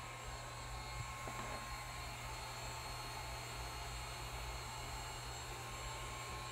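Electric heat gun running steadily, a constant blowing hiss over a low hum, aimed at an aluminum hub plate to expand it so the steel bearing pressed into it can come out.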